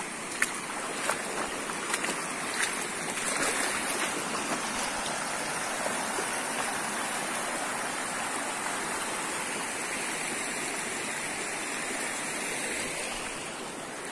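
Shallow river running over rocks, a steady rush of water, with a few short sharp splashes in the first few seconds as someone wades through it.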